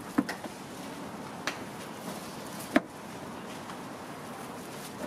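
Knife chopping melon on a cutting board: several sharp knocks a second or more apart, the loudest near the middle, over steady background noise.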